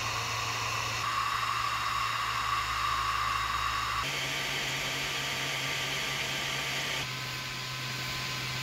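5015 radial blower fans of a 3D printer part cooling duct running at 100% power: a steady rush of air with a whine, changing abruptly about a second, four and seven seconds in as the fan setup changes between single and dual fans.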